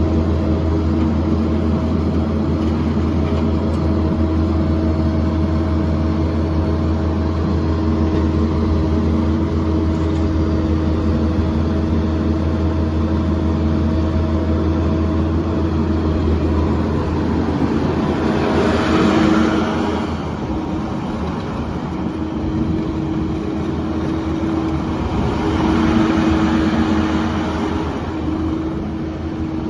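Kubota SVL75-2 skid steer's 74 hp Kubota diesel engine running steadily. It swells louder twice, about two-thirds of the way in and again near the end, as if revved or put under load.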